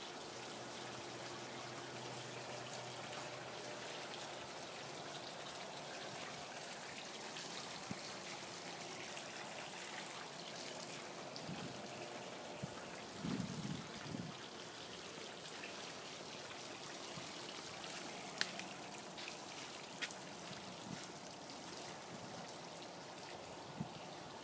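Steady rushing of water, with a few faint low knocks and a couple of sharp clicks.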